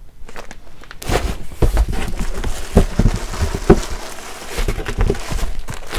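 Packaged linens being handled: continuous rustling and crinkling of their packaging, with several soft bumps, starting about a second in.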